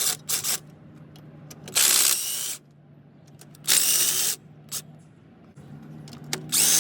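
Cordless power tool run in several short bursts of under a second, its motor whining up each time, spinning out the alternator mounting bolts.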